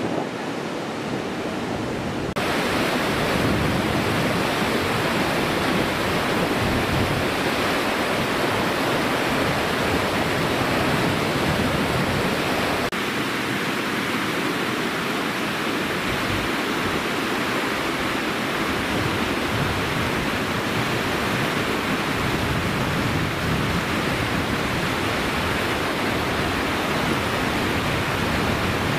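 River in flood: a steady rush of fast, churning water. It comes in suddenly about two seconds in.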